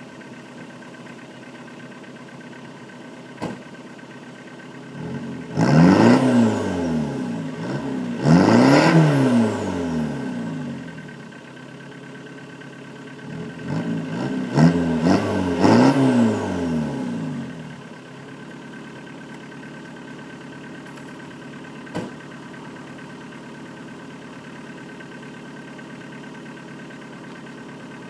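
Corsa Combo 1.7 turbo-diesel idling through a home-made exhaust built from a Vectra downpipe and an Integra centre silencer. It is revved four times in two pairs, each rev rising and falling back, then settles to a steady idle.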